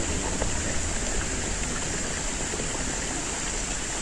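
Steady rushing noise of running water, with a constant high hiss above it.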